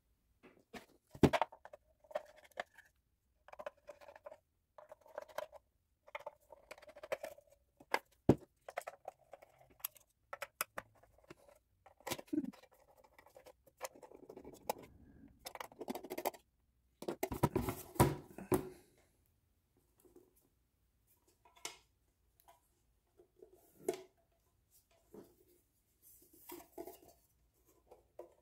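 A screwdriver backing screws out of an Apple II power supply's thin metal case, and the case being handled. The sound is a fast-forwarded run of quick clicks, short scrapes and small metallic clinks, with a cluster of louder knocks about two-thirds of the way through.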